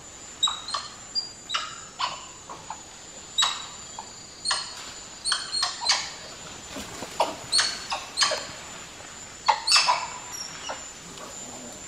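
Spider monkeys giving an irregular series of short, sharp barking calls, some with a clear high note, over a steady high insect buzz; the loudest cluster comes near the end.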